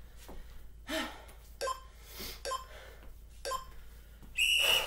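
A woman breathing hard and gasping between exercise sets, out of breath after a round of jumping jacks: several separate breaths. Near the end comes a louder hissing exhale with a high, steady whistle-like tone.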